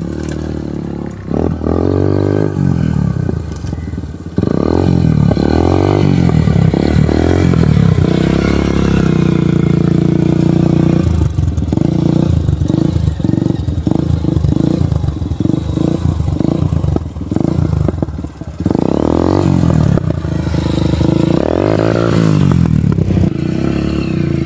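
A mini dirt bike's 150 cc Honda Bros single-cylinder four-stroke engine, breathing through a newly fitted aftermarket sport exhaust tip, being ridden hard. It sounds loud, and its pitch rises and falls over and over as the throttle is opened and shut, with a choppy stretch of quick on-off revs midway.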